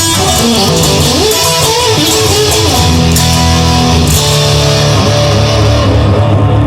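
Instrumental rock music led by electric guitar, with bass and drums underneath, in a break between sung lines of the song.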